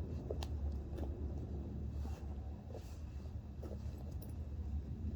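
Faint scattered clicks and short scrapes of small wheel parts being handled as a scale RC crawler's steel ring-lock wheel is lined up and fitted, over a steady low hum.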